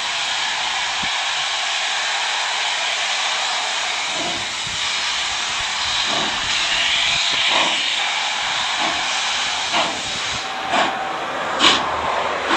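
Two steam locomotives, double-headed, approaching under steam with a loud steady hiss of escaping steam. From about four seconds in, separate exhaust beats come through the hiss, sharper and closer together near the end.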